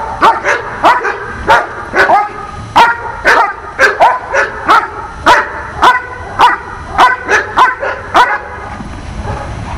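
A dog barks in a steady run of about three barks a second, then stops about eight seconds in.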